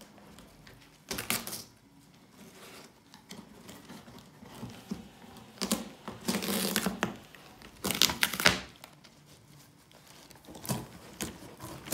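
A dog ripping masking tape and cardboard off a taped-up box with its teeth, in a handful of separate tearing bursts; the longest comes about six to seven seconds in.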